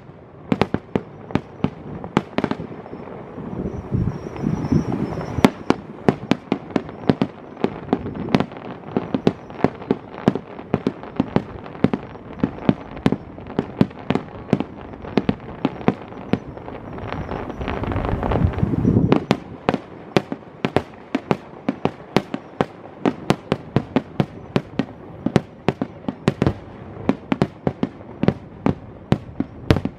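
Fireworks display: a rapid barrage of aerial shell bursts, several bangs a second. A little past the middle the bursts crowd into a louder, denser cluster that stops abruptly.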